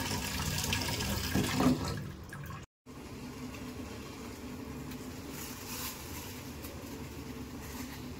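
Water running from a tap, which stops at a cut about three seconds in, leaving a quieter steady hiss.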